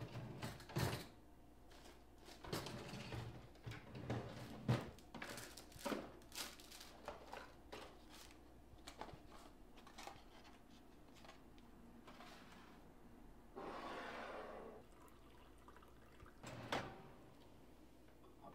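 Quiet kitchen handling sounds: a string of light knocks and clinks of dishes and cupboard doors, then about a second of water pouring into a mug about three-quarters of the way through, and one more knock after it.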